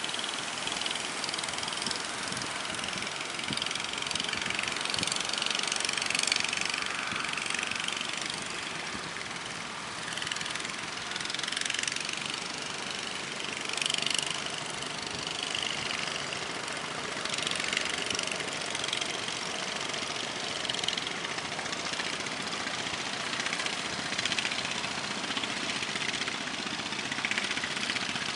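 A fishing boat's engine running steadily, with surging sea noise rising and falling every few seconds.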